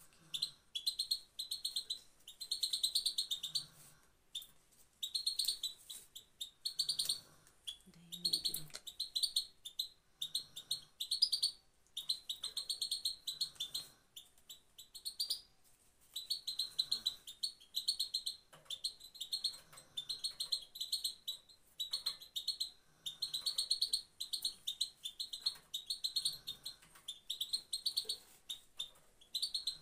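Female goldfinch giving its 'pit pit' call over and over: short runs of rapid, high chirping notes, a run roughly every one to two seconds.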